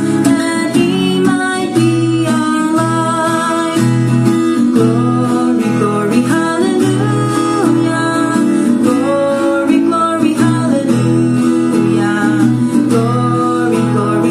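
Music led by acoustic guitar, with a gliding melody line over a steady bass.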